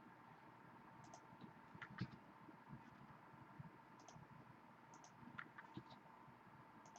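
Near silence with a faint steady hum and a few faint, irregular clicks, the loudest about two seconds in.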